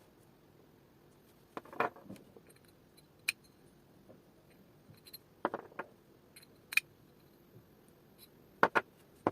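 Scattered sharp clicks and light knocks of small hard parts being handled, some in quick clusters of two or three.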